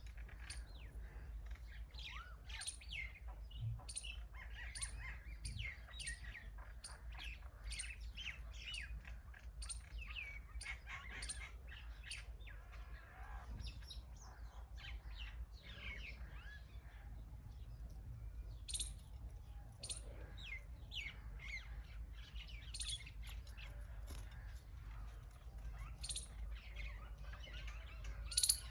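A flock of small birds chirping and calling, with many short, high chirps overlapping throughout and a louder sharp call near the end, over a steady low rumble.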